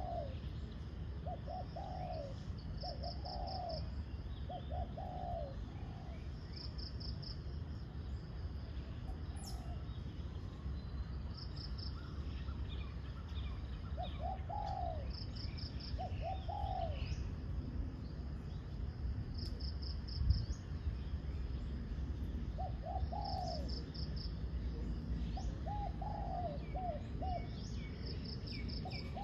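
Spotted doves cooing in repeated short phrases of two to four notes, with longer gaps in the middle. Short quick series of high chirps come every few seconds over a low steady rumble, and there is a single thump about 20 seconds in.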